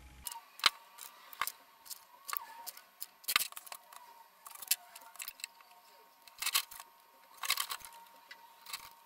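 Scattered light clicks, taps and rustles of handling: a thin metal marking strip being unwrapped and a small steel propane bottle being turned over on a metal workbench, at irregular intervals.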